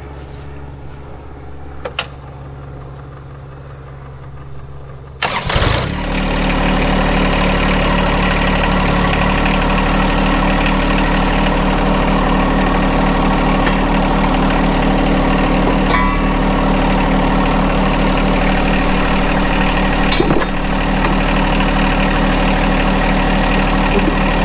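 John Deere 1025R compact tractor's three-cylinder diesel engine cranking and catching about five seconds in, then idling steadily.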